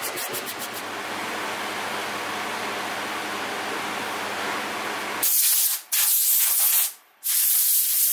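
Compressed-air blow gun hissing in three loud blasts, with brief gaps, over the last three seconds, blowing sanding dust off plywood. Before that, a few strokes of a sanding block rubbing on the wood at the start, then a steady, quieter rushing noise.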